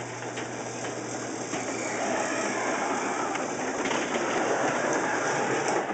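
Sectional garage door rolling up on its tracks, driven by an electric opener: a steady rumble with a constant low hum, stopping abruptly near the end.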